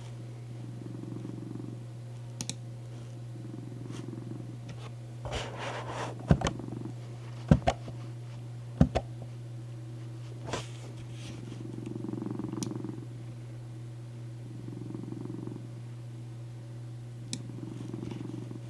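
Cat purring steadily, rising and falling in slow swells every two to three seconds over a steady low hum. A few sharp clicks sound near the middle.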